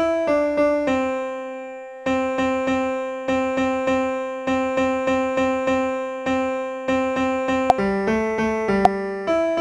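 Background music: a piano-like keyboard melody of evenly spaced struck notes, with one held note fading out about a second in before the notes resume. Two sharp clicks come near the end.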